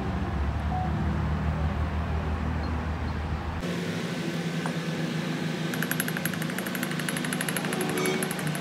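Workshop machinery: a steady low mechanical hum that changes abruptly about three and a half seconds in, followed from about six seconds by a rapid, even run of sharp clicks.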